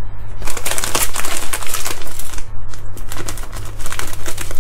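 Plastic bag being opened and handled, a dense run of rapid crinkles and crackles, over a steady low hum.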